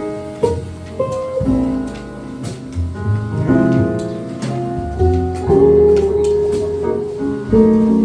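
Jazz quartet of guitar, piano, bass and drums playing a slow tune: the guitar carries long held chords over bass notes, with light cymbal strokes.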